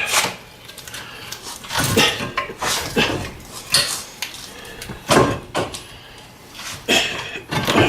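Hammer blows on the steel front suspension of a car, about eight sharp metallic clanks at an uneven pace, knocking a seized part loose while a pry bar holds pressure on it.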